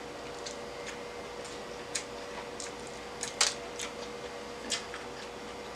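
Eating sounds of a person chewing: irregular short wet clicks and smacks, the loudest about three and a half seconds in, over a faint steady hum.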